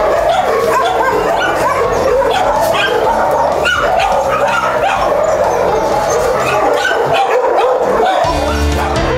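Dogs in a shelter kennel barking and yipping continuously, the calls overlapping one another.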